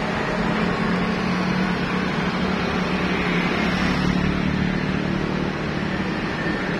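Street traffic: motorcycles and cars running past on the road, over a steady low hum, with one vehicle passing close about four seconds in.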